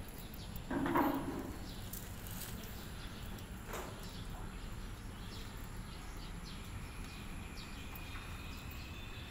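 Faint birds chirping over a steady low outdoor hum, with one short, louder sound about a second in.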